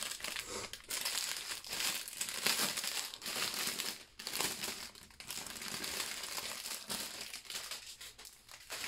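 Clear plastic packaging crinkling as a bag full of small zip bags of diamond painting drills is handled and turned over, the packets rustling against each other in uneven bursts with brief pauses about four and five seconds in.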